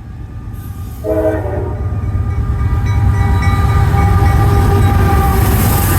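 Diesel freight locomotive horn sounding over the heavy rumble of the locomotive: a short chord blast about a second in, then held chord tones. Wheel and rail hiss builds near the end as the train draws close.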